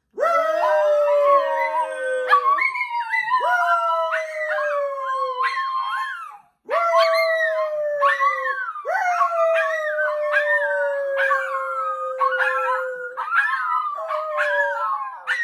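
Several miniature schnauzers howling together in long, overlapping, wavering calls, with the people holding them howling along. The chorus breaks off for a moment about six seconds in, then starts up again.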